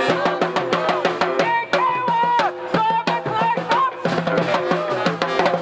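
Live street-band music: a marching drum struck in quick, steady beats, with an electric guitar and a bending melody line over it.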